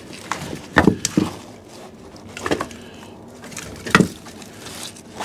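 Split firewood logs knocking and clattering against each other as they are pulled one at a time from a stacked woodpile: several sharp wooden knocks, the loudest about a second in, at about two and a half seconds and at about four seconds.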